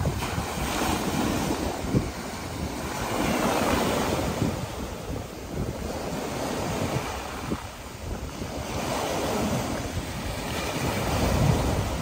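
Small ocean waves breaking and washing up a sandy beach, the surf swelling and easing every few seconds, with wind buffeting the microphone.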